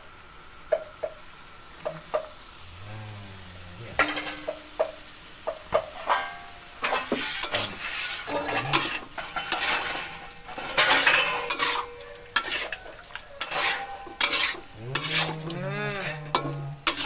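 A metal spatula stirs and scrapes around an aluminium wok while squid and tomatoes sizzle in their black ink with sweet soy sauce. The scraping and clanking are sparse at first and turn into quick, busy stirring from about a quarter of the way in.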